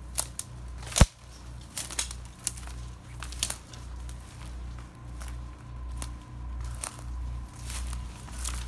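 Footsteps of a person walking while holding the camera, with crackling handling noise and low thumps about twice a second; a sharp click about a second in is the loudest sound.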